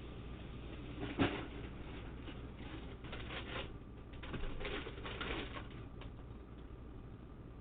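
Objects being handled and set down on a desk: a sharp knock about a second in, then scattered clicks, taps and rustling, over a steady low electrical hum.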